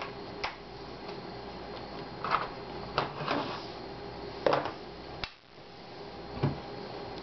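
Scattered hard plastic clicks and knocks as a laptop's battery is unlatched and slid out of its bay and the machine is handled on a wooden table.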